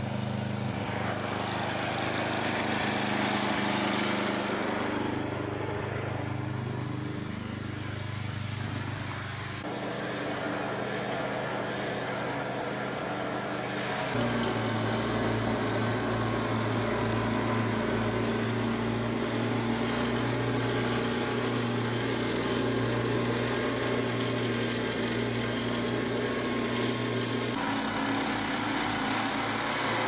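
Snowblower's gasoline engine running steadily under load while it chews through deep snow and throws it from the chute. It gets louder about halfway through.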